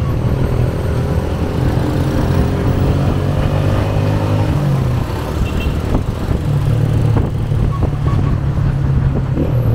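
Motorcycle engine running while riding in city traffic. The engine eases off about halfway through and picks up again a couple of seconds later, over the general noise of the surrounding traffic.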